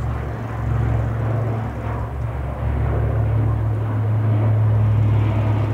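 Two four-engine C-130 Hercules turboprops flying over with a steady, low propeller drone that grows a little louder about halfway through.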